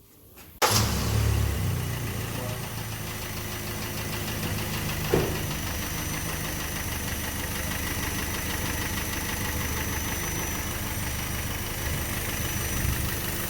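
Kia Sportage 3 car engine starting about half a second in and settling to a steady idle, run during an injector flush service. There is one short sharp knock about five seconds in.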